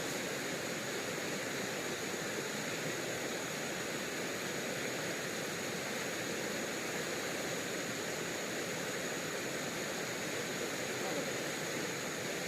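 Steady rushing of flowing river water, even and unbroken, with a thin high steady tone over it.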